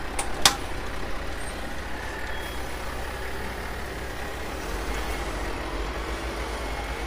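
Diesel engine of a tractor unit pulling a tipper semi-trailer, running steadily at low revs. Two sharp clicks come in the first half second.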